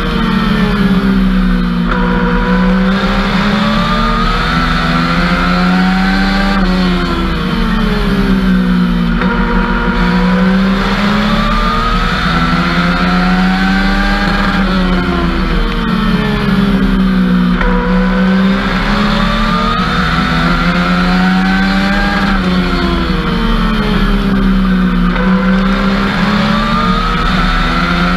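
Legends race car's 1250 cc Yamaha motorcycle engine at racing speed, heard from inside the cockpit: the revs climb for a few seconds on each straight and drop as the driver lifts for each turn, repeating through several laps over a steady drivetrain drone.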